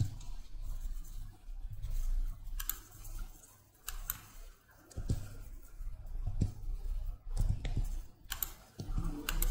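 Computer mouse clicks and keyboard keystrokes: a handful of sharp, separate clicks spaced a second or more apart, over a low background rumble.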